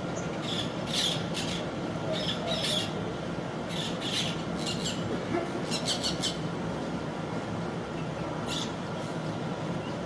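Birds giving short, high calls in quick clusters for about the first six seconds, then a single call near the end, over a steady background noise.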